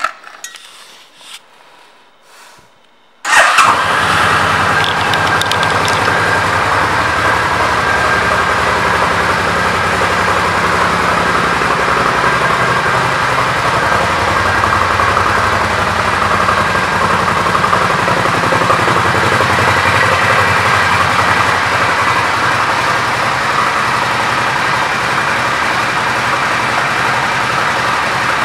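The 2004 Suzuki VL800 Intruder Volusia's 805 cc V-twin engine starts about three seconds in, after a few faint clicks, and then idles steadily.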